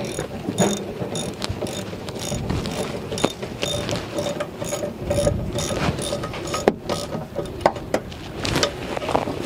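Socket ratchet clicking in repeated runs as a 7 mm hex (Allen) bit is turned on a rear brake caliper bolt.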